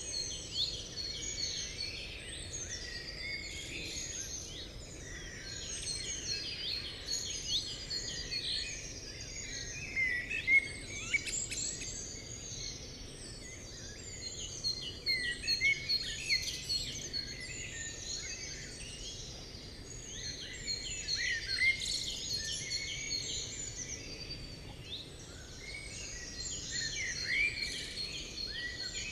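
Many small birds chirping and calling, short quick notes overlapping throughout, over a faint steady background hiss.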